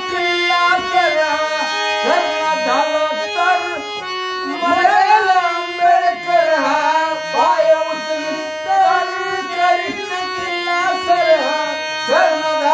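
Harmonium playing a melody over held reed tones, with a man's voice singing a Bhim geet along with it.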